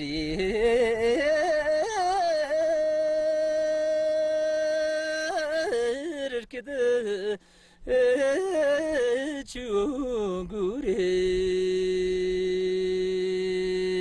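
Unaccompanied Luhuo Tibetan folk singing in question-and-answer style: two voices in turn, each phrase winding through ornamented turns and ending on a long held note, the second phrase pitched lower than the first.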